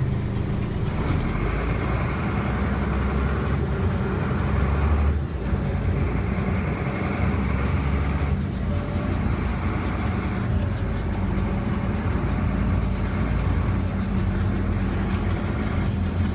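Potato harvest machinery running steadily: a constant low engine hum with an even rushing noise over it from about a second in.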